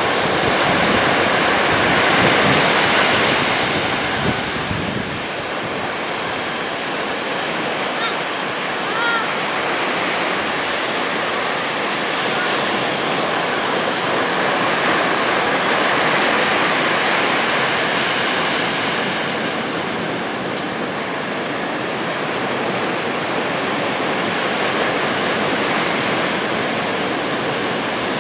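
Ocean surf breaking and washing up a sandy beach: a steady rush of water that swells louder twice as bigger waves come in.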